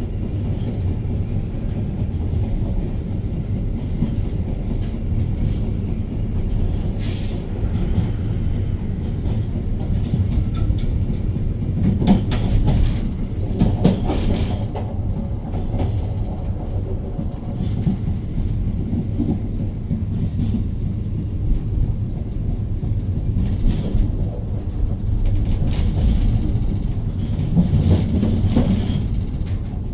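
Argo Bromo Anggrek passenger train running, heard from inside a carriage: a steady low rumble with scattered knocks and clacks from the wheels on the track, a few louder ones around the middle and near the end.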